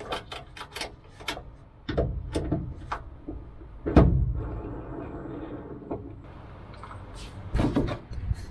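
Clicks and knocks of small bolts, washers and a hand tool against the plywood of a wooden fuselage as bolts are snugged down by hand with low torque. The knocks come in clusters, the loudest about four seconds in and another near the end.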